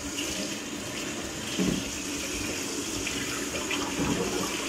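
Kitchen faucet turned on and running steadily into a stainless steel sink while a whole fish is rinsed under the stream, the water splashing off the fish and gloved hands.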